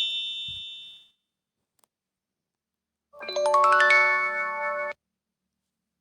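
Chime-like sound effects: the end of a rising run of bell-like notes fading out over the first second, then, after a short silence, a quick upward run of bright chiming notes that rings on as a chord for about a second and a half and cuts off suddenly.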